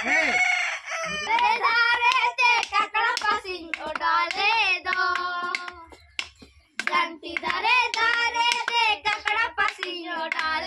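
Children singing in a drawn-out, wavering way, with a short break about six seconds in. A rooster crows at the very start.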